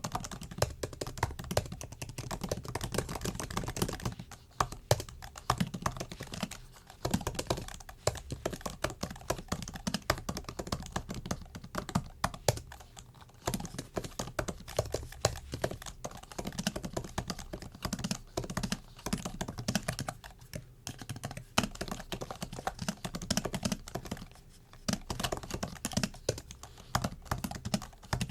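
Typing on a MacBook keyboard: a fast, continuous run of light key clicks, with a few short pauses.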